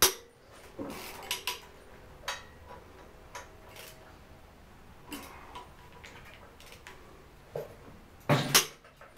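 Wrench and socket clinking and knocking on the flywheel bolts of a diesel engine hung from a hoist chain, as the 12 mm 12-point bolts are loosened. The metal clinks come at irregular intervals, with the loudest knocks near the end.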